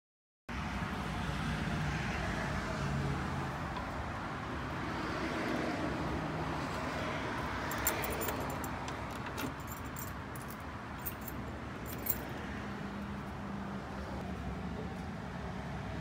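Light metallic clicks and jingles of an old Weiser door handleset and key being handled, with two sharper clicks about halfway and three-quarters of the way through, over a steady rushing background noise.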